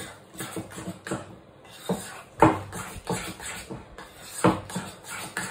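Metal spoon knocking and scraping against a ceramic bowl while mashing and stirring a soft food mixture, in irregular repeated strokes, the loudest about halfway through.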